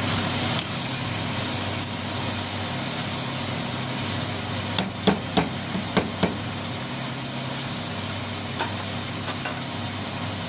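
Pork pieces sautéing with onion, garlic and tomatoes in a nonstick frying pan: a steady sizzle as a spatula stirs them, over a steady low hum. About five seconds in there is a quick run of about five spatula knocks against the pan.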